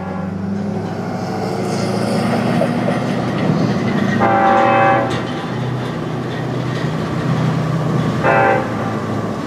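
An A-10 Thunderbolt II jet passes with a high whine over a steady low drone. A horn sounds twice: a blast of nearly a second about four seconds in, and a short one near the end.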